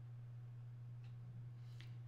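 Quiet room tone with a steady low hum and a couple of faint clicks in the second half.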